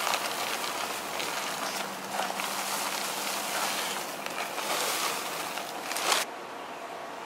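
Dry concrete mix pouring from a bag into a post hole around a wooden post, a steady grainy hiss of sand and gravel running down into the hole, with a louder rush just before it stops abruptly about six seconds in. The mix is being set in the hole dry, to be wetted afterwards.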